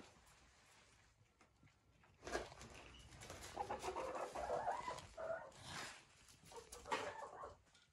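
Hens clucking quietly in short broken calls, starting about two seconds in, with small scratches and taps on the floor between them.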